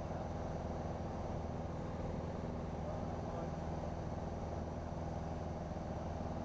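Light single-engine airplane's piston engine and propeller droning steadily in level cruise flight.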